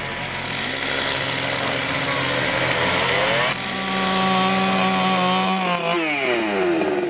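Chainsaw running at high revs, its pitch rising about three seconds in, then falling away near the end as the revs drop.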